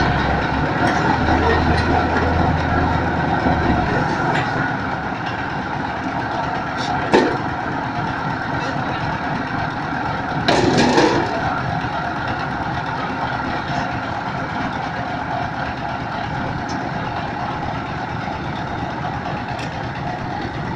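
Single-cylinder diesel engine running steadily, driving a concrete hollow block machine, with a low hum that stops about four seconds in. A sharp metallic knock comes about seven seconds in, and a short louder rattle around eleven seconds.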